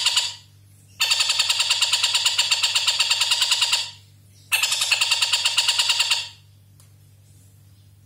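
Caged tengkek buto kingfisher giving its long, loud, rapid rattling call, about seven notes a second. One burst ends just after the start, then two more follow, about three and two seconds long, before it stops; a low steady hum runs underneath.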